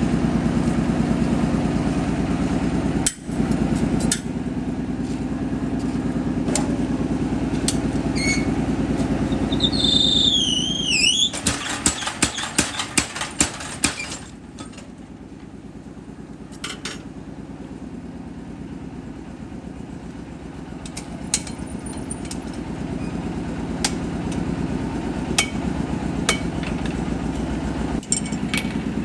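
A motor running steadily, with a rapid run of hammer blows on metal, about five a second, starting about eleven seconds in and lasting some three seconds. A high wavering squeal comes just before the blows, and single sharp knocks follow now and then.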